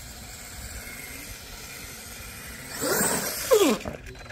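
Radio-controlled monster truck driving on a dirt course: quiet at first, then about three seconds in a louder burst of motor whine and running noise, its pitch dropping quickly at the loudest point.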